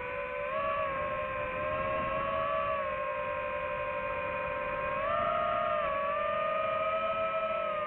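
FPV quadcopter's brushless motors whining steadily, the pitch shifting with throttle and stepping up about five seconds in.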